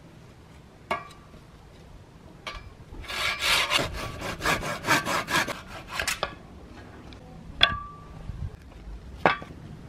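Hand saw cutting through a thin tree branch on a steel sawhorse: quick rasping strokes, about four a second, for about three seconds. A few sharp knocks follow, the loudest two near the end with a short ringing, as wood knocks against the metal frame.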